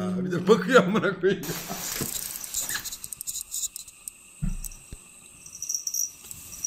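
A domestic cat meowing a few times in the first second and a half, then quiet, with a single soft thump about four and a half seconds in.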